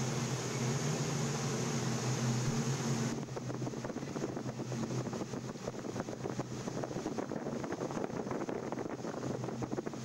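Steady low hum of a ship's machinery under a broad rushing noise; about three seconds in the hum drops away, leaving a rough, crackling rush of wind and sea as the vessel pitches through a storm.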